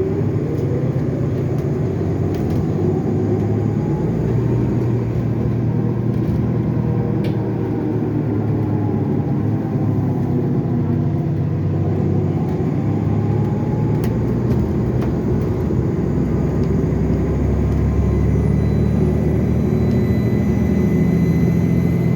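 Onboard sound of a 2015 NovaBus LFSA hybrid articulated bus under way: its Cummins ISL9 diesel hums steadily while the Allison EP50 hybrid drive whines, rising and falling in pitch as the bus speeds up and slows. About eighteen seconds in, a thin high whine starts and climbs.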